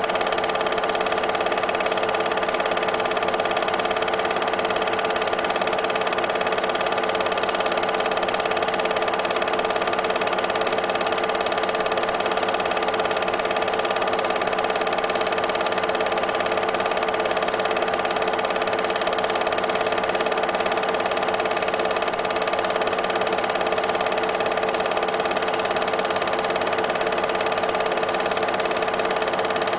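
8mm film projector running steadily, an unchanging mechanical whir.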